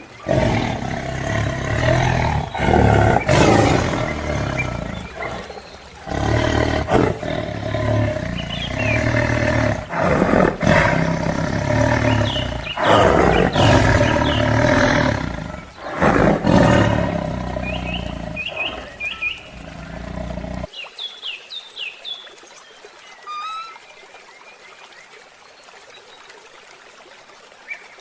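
Loud, repeated calls of a large animal for about twenty seconds, cutting off abruptly; short high bird chirps follow for the rest.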